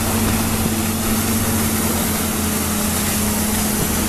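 A boat engine running steadily, a constant low hum over an even rushing noise.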